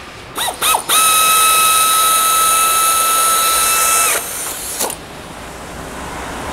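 Pneumatic air ratchet driving the backplate bolts of a pump. It gives two quick blips, then runs for about three seconds with a steady high-pitched whine and air hiss, stops, and gives one more short burst near the end.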